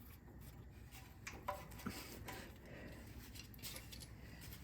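A few faint clicks and light taps, with a little rubbing, as metal engine parts are handled by hand.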